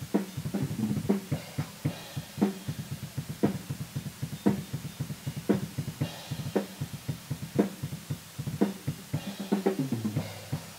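Drum kit being played, with a fast steady run of bass-drum hits and a harder snare or cymbal strike about once a second. It is heard muffled and dull, from a mic placed inside the cup of Mpow noise-reduction ear muffs.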